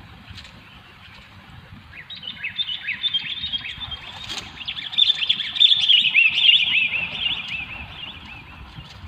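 Sooty-headed bulbul calls: a fast, chattering run of short, bright notes that starts about two seconds in, is loudest in the middle and fades near the end.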